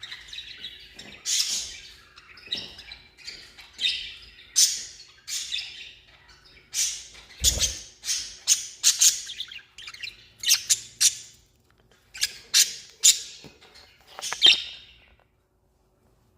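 Budgerigars chirping and squawking in quick, sharp calls, one after another, with a low thump about halfway through; the calls stop shortly before the end.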